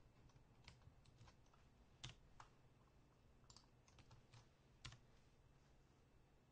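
Faint, irregular computer keyboard keystrokes and clicks, with two louder clicks about two seconds in and just before five seconds.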